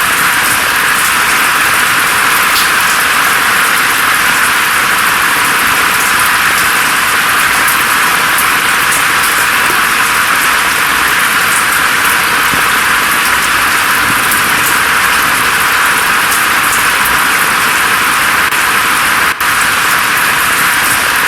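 Steady rain falling, an even hiss with faint scattered drop ticks. There is a momentary dip in loudness near the end.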